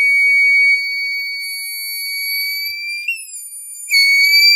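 Buzzer on an RMS 1912 water pump controller board sounding its dry-run alarm as one continuous high-pitched tone. The alarm means the lower tank has water but none is reaching the upper tank, so the pump has been shut off. The tone turns noticeably quieter about a second in and comes back loud near the end.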